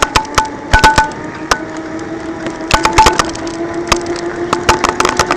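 Electric scooter motor whining, its pitch rising slowly as it gathers speed. Irregular sharp knocks and rattles sound over it as the scooter jolts over a bumpy road.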